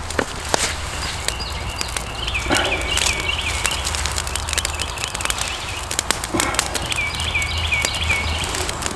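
Small twig campfire crackling with frequent sharp snaps and pops as sticks are fed into it. A bird sings a short run of repeated chirps twice, about two and a half seconds in and again around seven seconds.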